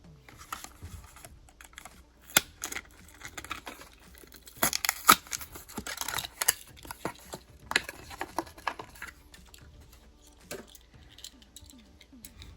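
Hands handling and opening a Matchbox diecast car's packaging: a run of irregular clicks, crackles and crinkling plastic and card, busiest in the middle and thinning out near the end.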